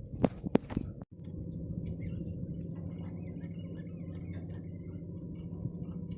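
Steady low rumble of a fishing boat's engine idling, with faint squeaks and clicks over it. A few sharp knocks come in the first second, then the sound drops out briefly before the rumble.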